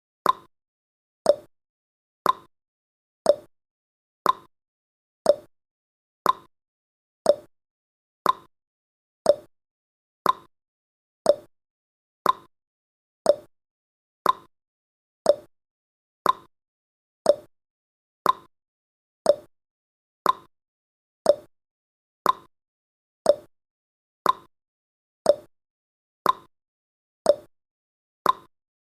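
Countdown timer's tick-tock sound effect: one short click every second, alternating between a higher and a lower tick, counting down the final seconds.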